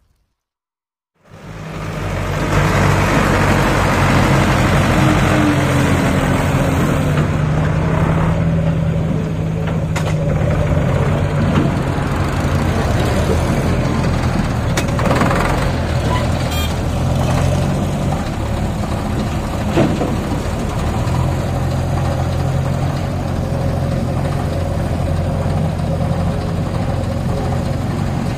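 HMT tractor's diesel engine running steadily. It comes in about a second in, after a moment of silence.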